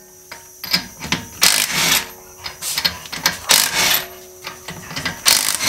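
Cordless impact wrench hammering lug nuts loose on a car wheel, in several short bursts about a second apart.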